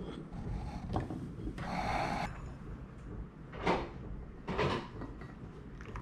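Short handling noises: a click about a second in, a scraping rustle lasting about half a second, then two brief swishes.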